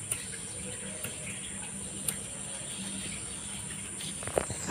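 Crickets trilling steadily on one high note. A few sharp clicks about once a second, then louder short strikes near the end as a small flame is lit by hand.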